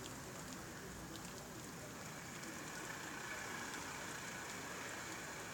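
Faint, steady hiss of light rain outdoors, with a few faint scattered ticks of drops.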